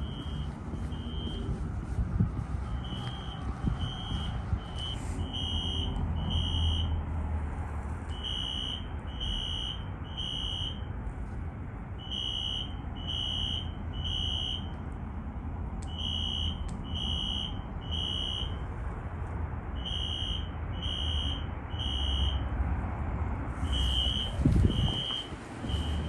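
Wheelock Z/NS fire alarm horns sounding the temporal-3 (code 3) evacuation pattern: three short high blasts, a pause, then three again, repeating about every four seconds. The horns are inside the building and heard from outside, fainter for the first five seconds and louder after, over a steady low rumble.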